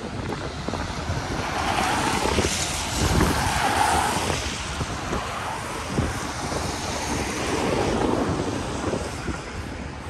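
Street ambience of wind gusting on the microphone and passing traffic, swelling about two to four seconds in.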